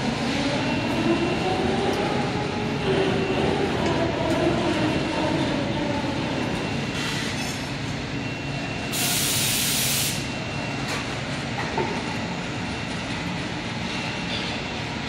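Workshop machinery running: a steady din with a motor whine that slides up and down in pitch, and a burst of hissing air about nine seconds in that lasts about a second.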